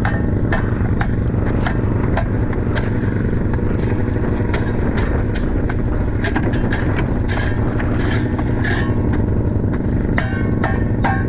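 Snowmobile engine idling steadily, with irregular sharp knocks and clatter from an ice-fishing shelter being packed up on the ice.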